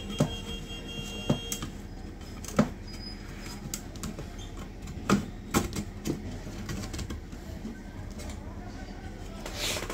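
Scattered clicks and knocks as an amplifier circuit board is handled and pressed into place inside a metal enclosure. There are about half a dozen sharp taps, irregularly spaced.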